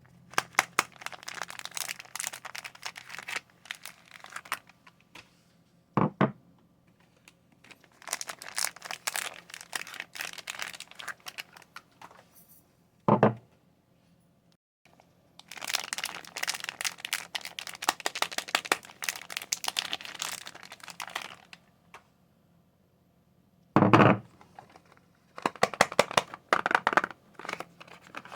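Soap packaging crinkling and tearing as the bars are unwrapped, in four bouts of dense crackle with pauses between them. Three short, heavier thumps fall between the bouts, about six, thirteen and twenty-four seconds in.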